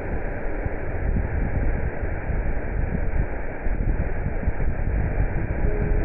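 Steady rushing noise of a waterfall's falling water, with no high end to it.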